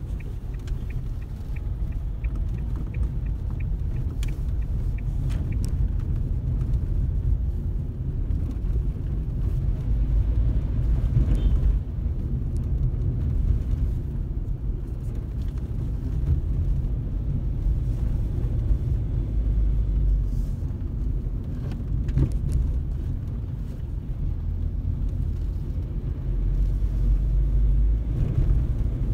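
Car driving along a road: a steady low rumble of engine and tyres. A light, evenly spaced ticking runs through the first few seconds, and a few brief knocks come through later.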